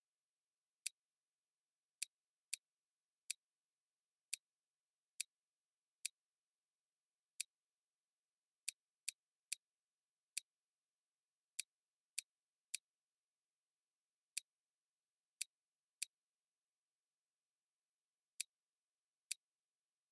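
Computer mouse clicks: about twenty sharp single clicks at irregular intervals of roughly a second, with dead silence between them.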